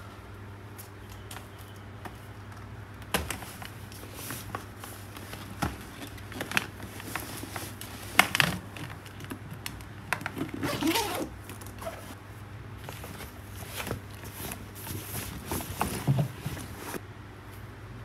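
A backpack being handled and packed: the fabric rustles, and irregular knocks and clicks come as a flat device is slid into it and the bag is laid down. A faint steady hum runs underneath.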